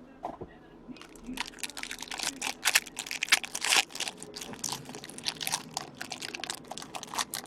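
Rustling and crinkling of trading-card packaging and cards being handled. After a quiet first second there is a dense run of irregular, scratchy crackles.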